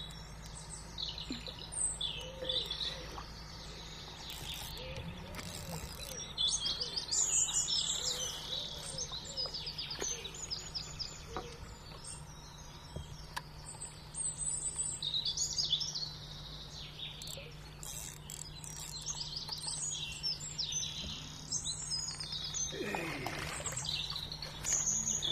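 Small birds singing and chirping in short repeated bright phrases, with a steady low hum underneath.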